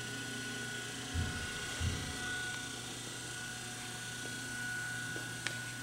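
Steady hum with a constant high whine from the powered-up Royal Master centerless grinder, with two dull thumps in the first two seconds and a sharp click near the end.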